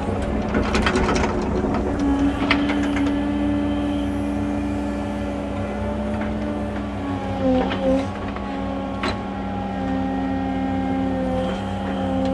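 Excavator's diesel engine running under load with a steady hydraulic whine as the bucket drags dirt down a bank. The tones waver briefly a little past halfway, and a few sharp clicks come through.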